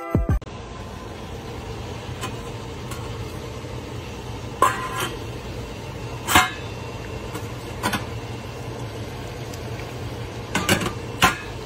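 Stainless steel pot lid clinking against the pot about five times, over a steady low hum.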